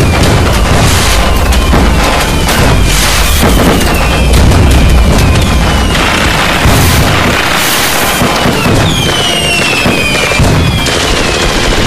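Fireworks and firecrackers going off in a dense, continuous barrage of crackling and booms. From about halfway through, several whistles fall in pitch.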